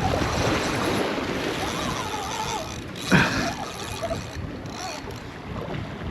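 Surf washing against the jetty and wind on the microphone, a steady rushing noise, with one sudden louder burst about three seconds in.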